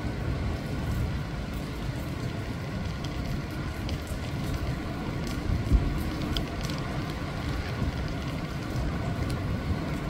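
Sea surf breaking over shoreline rocks: a steady low rumble and wash of waves, with a brief heavier thump a little before six seconds in. Faint scattered ticks of rain sound over it.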